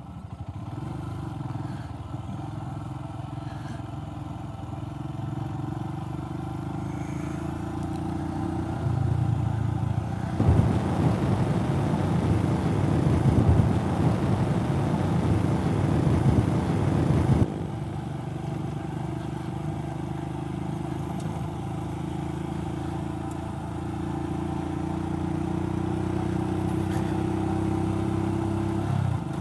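Royal Enfield Himalayan's single-cylinder engine running at a steady road speed. A loud rushing noise drowns it for about seven seconds in the middle, starting and stopping abruptly.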